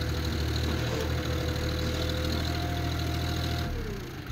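John Deere 4x2 tractor's diesel engine running at steady high revs, with a steady whine over the drone. About three and a half seconds in, the engine slows and the whine drops in pitch as the choke is pulled back.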